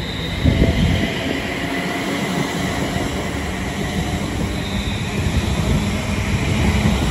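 Class 350 Desiro electric multiple unit departing past the platform: a steady rumble of wheels on rail with a steady electric whine, and a thump about half a second in.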